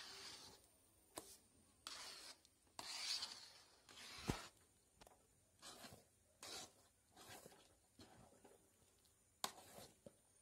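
Metal spatula scraping and folding thick mashed banana paste against the side of a large metal kadai: a faint run of short scrapes about once a second, with a sharper click twice.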